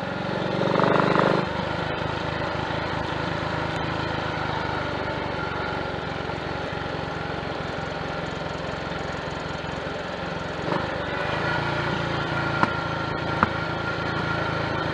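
Triumph Tiger Cub's small single-cylinder four-stroke engine running steadily under way, heard from the bike with road and wind noise. It runs without misfiring on a leaner mixture from a new carburettor slide, needle and jets. A few short sharp pops come near the end.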